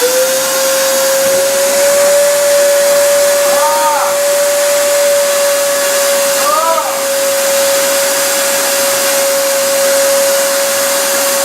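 Wet/dry vacuum motor running steadily with a high whine, sucking water out of a clogged toilet bowl; it has only just been switched on and is reaching full speed as the sound begins.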